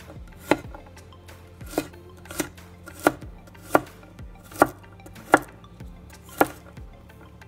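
Chef's knife chopping garlic cloves on a wooden cutting board: about eight sharp knocks of the blade striking the board, at an uneven pace of roughly one a second.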